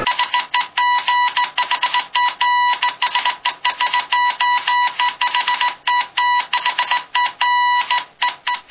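Morse code beeping: a single high tone keyed on and off in rapid short and long pulses, stopping abruptly at the end.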